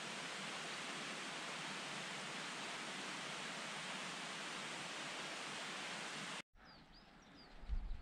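Steady rushing water, an even hiss. It cuts off abruptly about six and a half seconds in, leaving faint high chirps.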